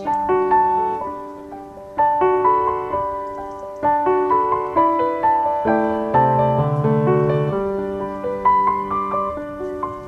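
Background piano music: a slow melody of struck notes that ring and fade over sustained chords.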